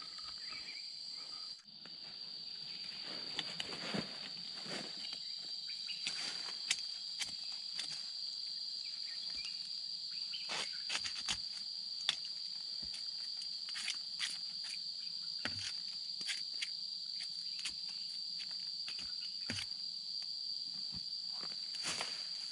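Steady high-pitched drone of insects, with scattered short knocks and rustles throughout.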